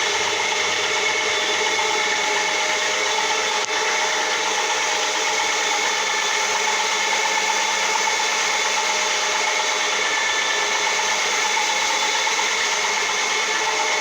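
Rotary floor polisher machine running steadily, its brush scrubbing a carpet: a constant motor whine with several fixed tones over an even brushing noise.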